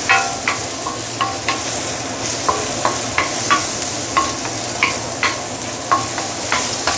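Sliced ginger and shiitake mushrooms sizzling in hot oil in a stainless steel wok, stirred with a wooden spatula that knocks against the wok about twice a second with short ringing taps.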